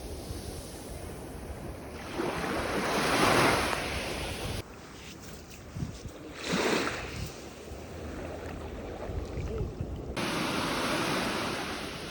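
Sea waves breaking and washing up on a sandy beach, surging and falling back in swells, the loudest about three seconds in, with some wind on the microphone.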